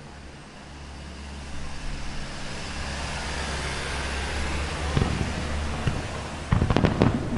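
A rushing noise swells over several seconds, then about six and a half seconds in a rapid barrage of fireworks shells starts bursting, loud sharp bangs with a few whistling shells among them.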